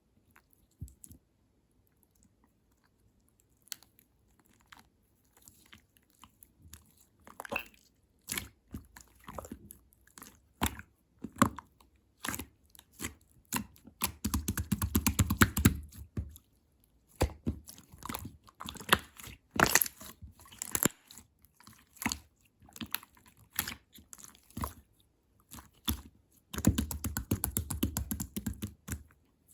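Purple slime being pressed and squished by hand, giving sharp sticky clicks and crackling pops, with denser runs of crackling about halfway through and again near the end.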